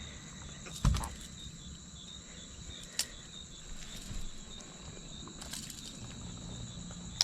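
Insects chirping steadily in high, evenly pulsing tones. A few faint knocks and a sharp click, about three seconds in, break through.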